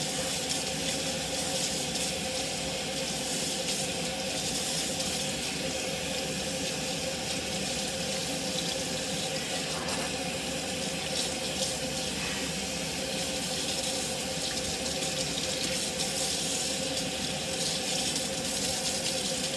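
Kitchen faucet running steadily, its stream splashing over wet hair and into a stainless-steel sink as shampoo is rinsed out. A steady tone sounds under the rush of the water.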